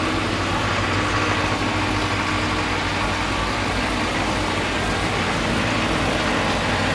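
Suzuki 4x4's engine running steadily at low revs while it crawls over a rocky off-road trail.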